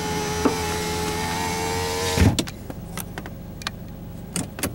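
Power window motor of a 2007 Mazda 3 running for about two seconds, a steady whine that dips slightly in pitch before stopping with a thump as the glass seats. A few light clicks follow.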